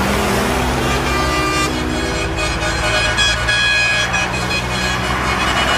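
Semi-trailer trucks passing on a highway, with engine and tyre noise. An air horn sounds over the first second or two.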